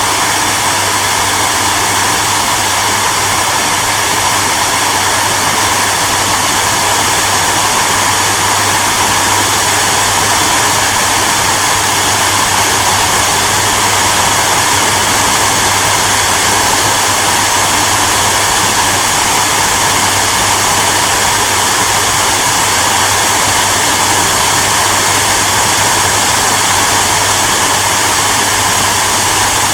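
Hair dryer running continuously at a steady setting: an even rushing blow of air with a constant low motor hum beneath it.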